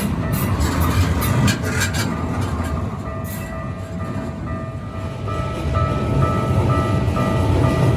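Japanese level-crossing warning bell ringing in short repeated strokes, about two a second, over the low rumble of a Keikyu train with wheels clicking over rail joints. The rumble grows louder near the end as a train comes through.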